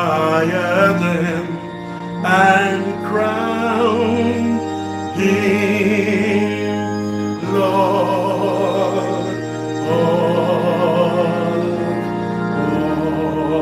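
A man singing a slow worship song in long held notes with a wavering vibrato, over sustained chords played on an electronic keyboard.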